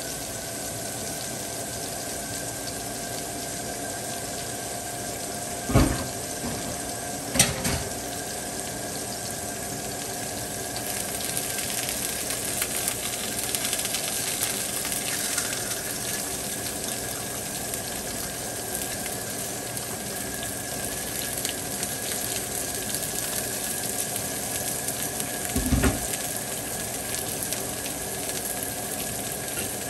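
Cod fillets sizzling on a griddle, the sizzle growing fuller about a third of the way in as sliced red onions and green onions go onto it. Three short knocks stand out, two close together about six and seven seconds in and one near the end.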